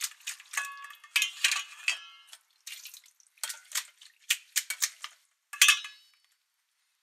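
Irregular metallic clatter from a stainless steel bowl and colander as raw frog pieces are handled in them: about a dozen sharp knocks, several leaving a short metallic ring. The loudest knock comes near the end, and then the clatter stops.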